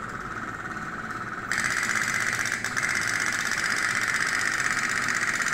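Toy pop-pop boats with cooking-oil-fired boilers running in water troughs, giving a rapid, even, cricket-like putter. The sound grows louder and fuller about one and a half seconds in, as a second boat puts along beside the first.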